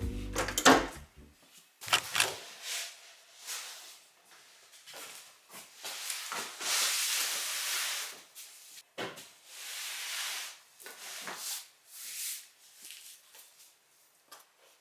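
Household handling sounds: a series of light knocks and clicks of things being moved and set down, with a longer rustling noise lasting about two seconds midway.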